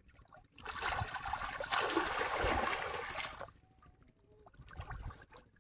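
Water splashing as a hooked catfish thrashes in shallow river water. The splashing is loud for about three seconds, then dies down to smaller splashes.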